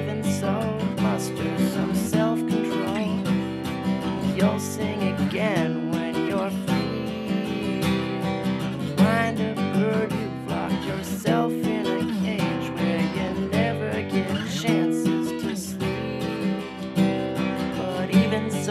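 Strummed acoustic guitar music, played on steadily.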